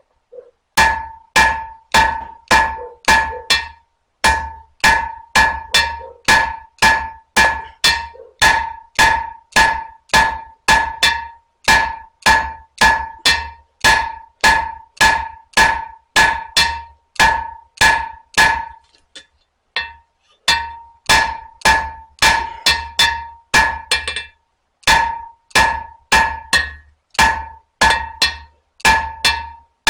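Blacksmith's hammer striking hot spring steel on an anvil, about two blows a second, each with a bright ring from the anvil, with a few short pauses. The work draws out and evens the handle end of a knife.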